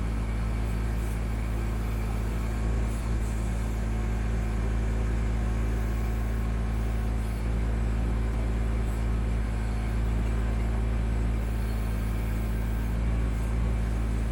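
Kubota B2650 tractor's three-cylinder diesel engine running steadily under a low rumble.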